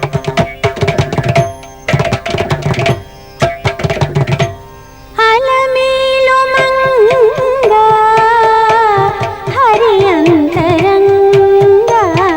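Carnatic classical dance music: rapid Indian hand-drum strokes in short phrases, then about five seconds in a melodic line with sliding, wavering ornamented notes joins over the drumming.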